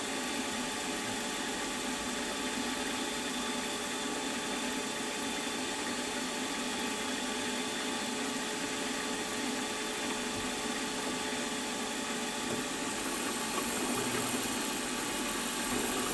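Milling machine spindle running steadily with a centre drill in the chuck, not cutting: an even machine hum with a faint whine. The sound shifts slightly near the end as the drill is brought down toward the part.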